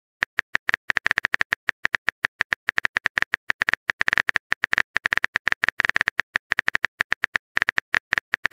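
Smartphone keyboard typing sound effect: a rapid, uneven run of short tapping clicks, several a second, beginning about a quarter second in.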